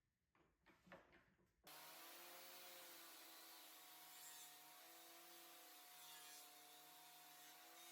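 Very faint table saw cutting plywood: a steady whir with hiss that starts abruptly a little under two seconds in, after a few faint ticks.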